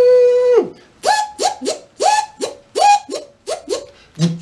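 Mouth-made vocal sound effects: a held, steady pitched tone cuts off about half a second in, then a quick series of about ten short blips, each with a hissy attack and a sharp drop in pitch.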